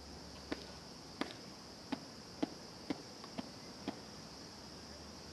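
A run of about seven short, sharp clicks, roughly two a second, over a steady high-pitched insect buzz.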